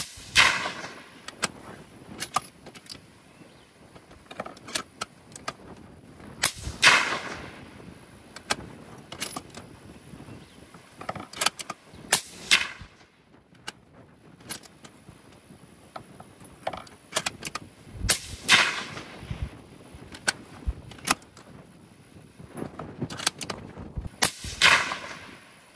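Suppressed bolt-action 25 Creedmoor rifle fired four times at intervals of several seconds, each report with a short echo. Smaller clicks and knocks come between the shots.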